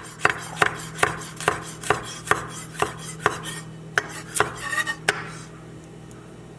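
Kitchen knife chopping garlic cloves on a cutting board: sharp knocks about two to three a second that stop about five seconds in.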